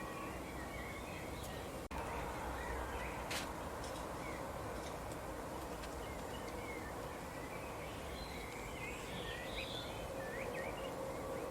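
Small birds chirping faintly in short, scattered calls, busier toward the end, over a steady outdoor background hiss. The sound drops out for an instant about two seconds in.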